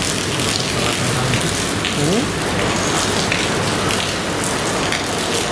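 Heavy rain pouring steadily onto a flooded road and standing water: a dense, even hiss of drops striking the water surface.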